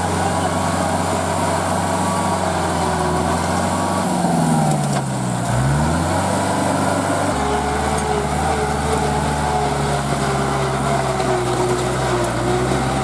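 Tractor diesel engine running steadily. About four seconds in, its revs drop sharply and then climb back, settling again about seven seconds in.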